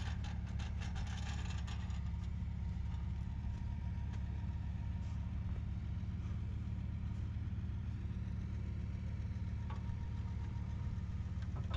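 Pickup truck engine idling steadily, with light clicks and rustling in the first couple of seconds.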